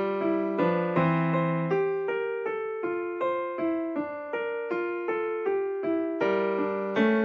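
Background music played on a piano-like keyboard: a steady run of struck notes, about two to three a second.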